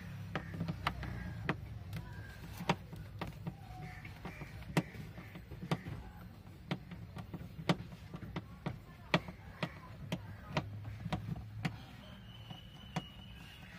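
Screwdriver turning screws out of a Mahindra Scorpio's plastic interior door pull handle: a long run of small, irregular clicks and ticks as the tip bites and slips in the screw heads and knocks the plastic trim, over a low steady background hum.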